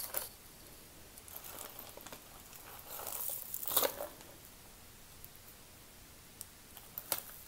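Clear plastic bag crinkling and loose costume jewelry clicking as a hand sifts through the pile. The rustling is loudest about three to four seconds in, with a few sharp clicks.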